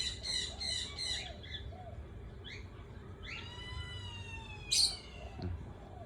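Parrots calling: a quick run of about five shrill chirps, then a long whistled call that slowly falls in pitch, broken by a sharp squawk near the end.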